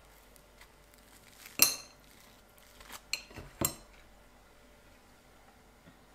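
A few short, sharp clinks on a ceramic dinner plate as things are set down on it: the loudest about one and a half seconds in, then a small cluster around three seconds and one more sharp clink shortly after.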